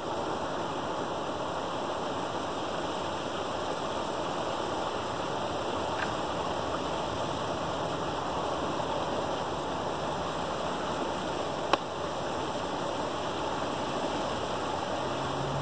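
Creek water rushing steadily over a gap in a beaver dam, a small waterfall of stick-and-mud dam. One sharp click sounds about three-quarters of the way through.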